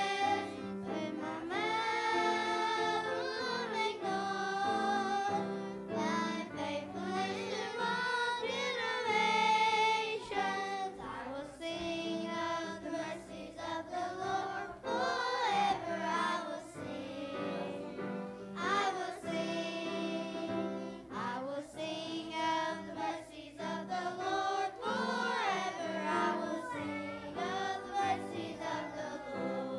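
A group of young children singing a song together into handheld microphones, over a steady musical accompaniment.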